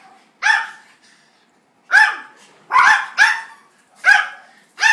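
A dog barking: about six short, single barks at uneven intervals, each a sharp yelp-like bark.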